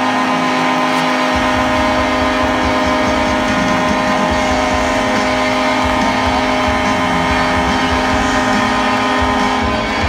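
Packed hockey-arena crowd cheering over loud arena PA music, a long held chord, with a deep rumble coming in about a second in.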